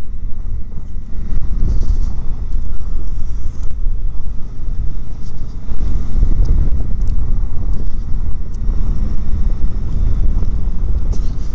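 Wind rushing over the microphone of a motorcycle riding at speed, a loud, uneven low rumble with the bike's running underneath it.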